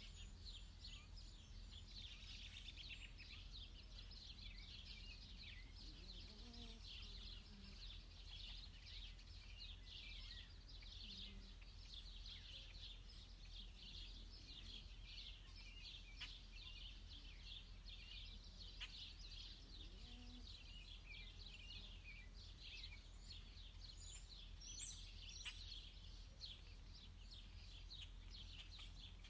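Faint, continuous high peeping of Canada goose goslings as they forage, many short chirps overlapping, over a steady low hum.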